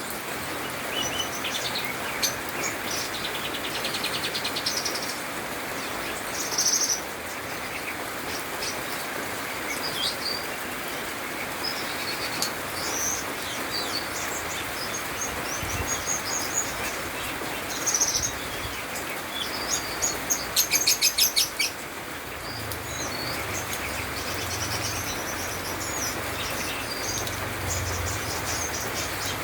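Cucak keling song mixed with other songbirds' calls: a run of short chirps, whistled notes and trills, with a fast rattling trill a little after two-thirds of the way through, over a steady background hiss.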